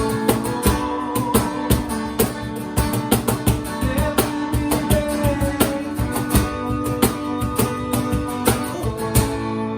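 Worship band playing an instrumental passage: guitar chords over a steady drum beat.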